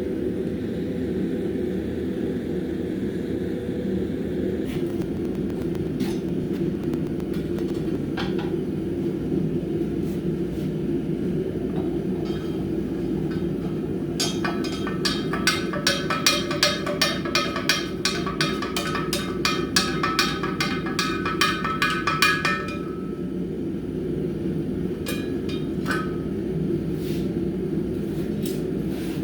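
A hammer striking hot steel on an anvil in a quick run of ringing blows, about four a second for roughly eight seconds past the middle, with a few single knocks before and after. A steady low roar runs underneath throughout.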